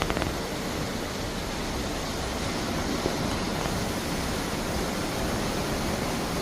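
Steady rushing of sea water past the hull of a moving cruise ship. A few faint clicks come right at the start.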